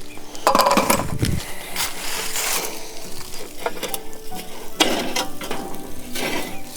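Cooking in a pan: a utensil scraping and knocking against the pan in several separate strokes, the loudest about a second in.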